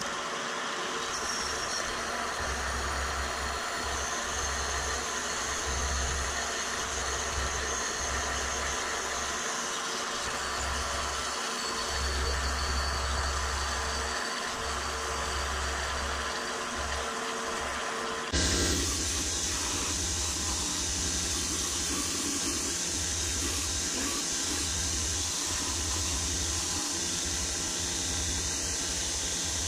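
Vertical bandsaw running and cutting through aluminum plate, a steady machine noise with an uneven low rumble. About eighteen seconds in it gives way abruptly to a combination belt and disc sander running, a steadier hiss.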